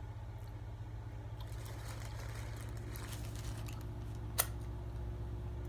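A person quietly chewing a fried chicken sandwich, with faint mouth and food noises over a steady low background hum, and a single sharp click about four seconds in.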